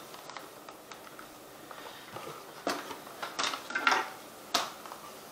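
Product packaging being handled and opened by hand: a few short scrapes and clicks, clustered in the second half.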